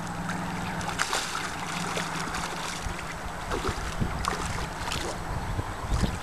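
Hooked fish splashing and thrashing at the surface close to the bank as it is played in, a run of short sharp splashes over a background of moving water. Low wind rumble on the microphone grows in the second half.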